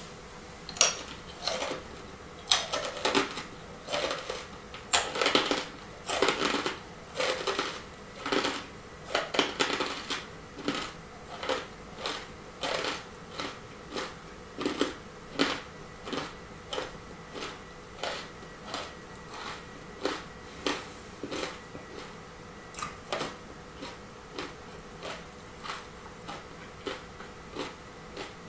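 Mouthful of four wasabi-coated peanuts being chewed with the mouth closed: a steady run of dry crunches, about one to two a second. The crunches are loudest at first and grow softer and more even as the nuts break down.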